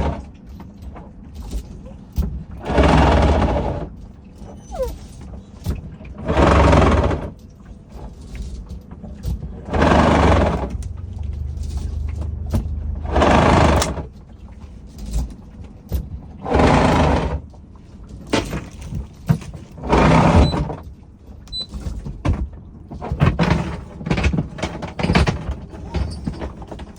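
Anchor line being hauled in by hand in regular pulls, each pull a noisy rasp about a second long, roughly every three to four seconds. Smaller, irregular handling noises follow near the end.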